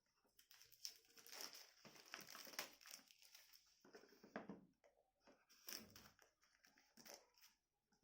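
Faint crinkling and clicking of a smartphone and its packaging being handled.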